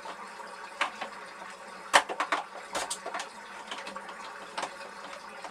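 Scattered clicks and knocks from hands working at the tabbed rear cover of a VacuFlush marine toilet to release it. The sharpest knock comes about two seconds in, followed by a quick cluster and a few fainter clicks later.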